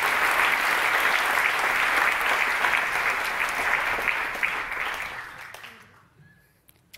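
Audience applauding, a dense patter of many hands clapping that dies away about five to six seconds in.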